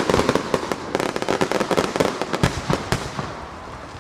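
Aerial fireworks going off in rapid succession, many sharp bangs over dense crackling. The bursts are thickest at first and thin out and grow quieter toward the end.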